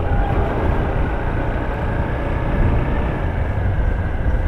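Honda CB Hornet 160R single-cylinder motorcycle riding at a steady speed: a constant engine and wind rumble, with a thin, steady high-pitched note running over it.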